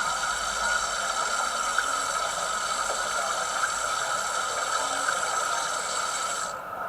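Sizzling, frying-food sound effect from a Piko digital-sound dining car model's decoder, played through its small speaker as a steady hiss that cuts off suddenly near the end.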